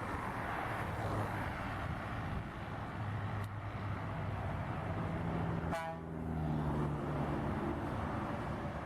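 A motor vehicle running, with steady road noise and a low engine hum. There is a click about three and a half seconds in and a brief sharp sound near six seconds.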